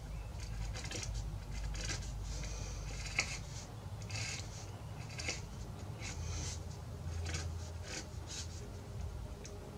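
Hand sanding of a padauk rosette inlaid in an acoustic guitar top: short scratchy strokes of abrasive on wood, about one a second.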